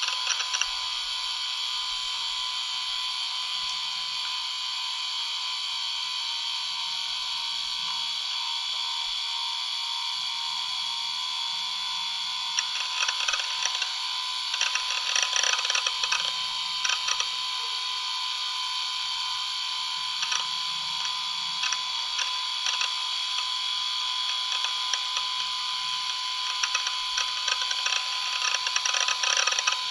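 A working laptop: a steady whirring hiss with a fixed whine in it. From about halfway through, irregular clicking and ticking comes in over it.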